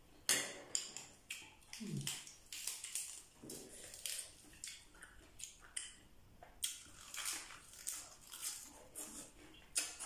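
Close-up eating sounds: crisp lettuce crunching and wet chewing of steamed scallop, with many short crackles and smacks from bites. There are two short low hums of voice, about two seconds in and again a second and a half later.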